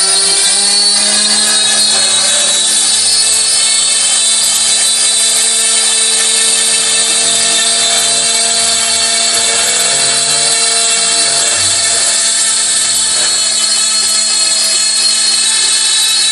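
SCR5040 CNC router's spindle running, its small end mill cutting an acrylic sheet: a loud, steady high whine over a low hum, its pitch stepping up slightly just after the start.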